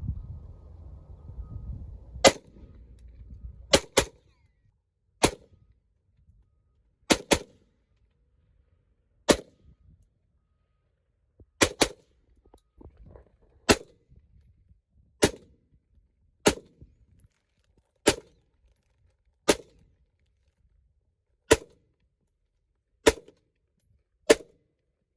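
Gunshots at a shooting range: about seventeen sharp cracks at irregular intervals, several fired in quick pairs a fraction of a second apart. A low rumble runs under the first few seconds.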